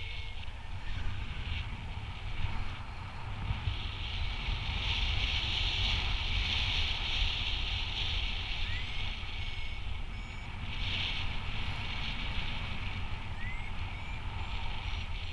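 Wind rushing over the microphone in flight, with the high electronic beeping of a paragliding variometer coming and going, strongest in the middle.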